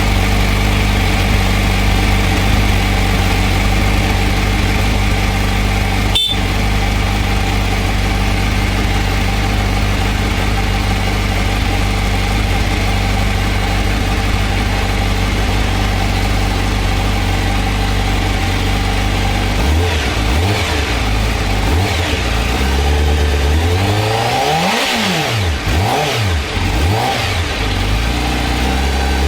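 Honda CBR1000RR-R SP's inline-four engine idling steadily through its stock Akrapovič exhaust, just after a cold start. About two-thirds of the way through it is revved in a series of quick throttle blips, pitch rising and falling back each time.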